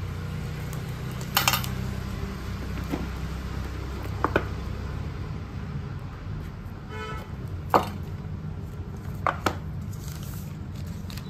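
Cardboard phone box being opened on a glass tabletop. A thin metal tool scrapes through the seal about a second and a half in, and then come several sharp taps and knocks as the lid is pulled off and the box and its parts are set down.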